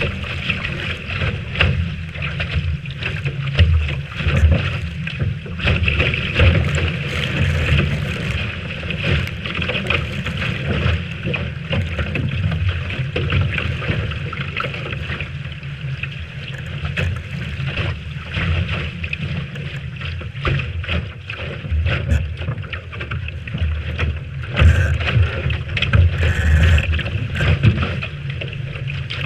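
Strong wind buffeting the microphone over water rushing along the hull of a Lightning sailboat sailing in a big breeze, surging unevenly in gusts.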